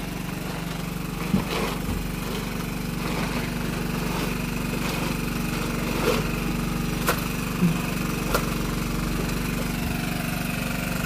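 A small boat engine running steadily at idle, with a few light knocks as the lid and tarp of an insulated plastic fish box are handled.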